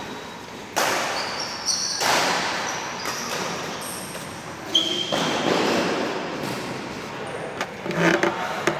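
Badminton sounds echoing around a large indoor hall: sharp hits and thuds with a long reverberant tail, and several short, high squeaks of court shoes on the floor.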